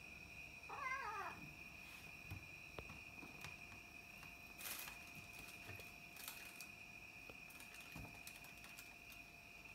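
A cat meows once about a second in: a short, wavering call that falls in pitch. A few faint knocks follow.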